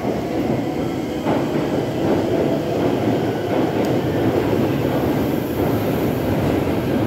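Keikyu New 1000 series electric train pulling away from the platform, its motors and wheels running louder as it gathers speed.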